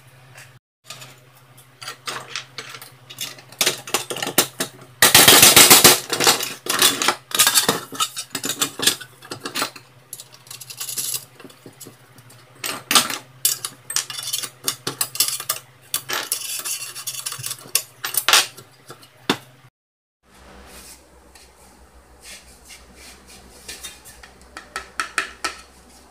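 Metal clinking and scraping as a wrench works a nut down a bolt through a metal plate: a run of sharp clicks with a loud, dense rattle about five seconds in. After a cut, fainter knocks and taps from handling the metal.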